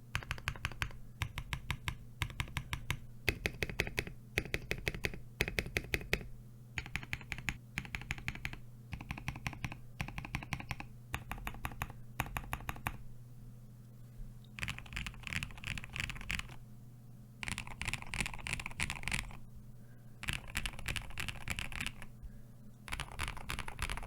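Mechanical keyboard, a KBD67 Lite R3 with PC plate, lubed and filmed Durock Pom switches and KAT keycaps, being typed on. First come short runs of modifier-key presses separated by brief pauses. From about 14 seconds in it turns to fast, dense random key-mashing. A steady low hum runs underneath.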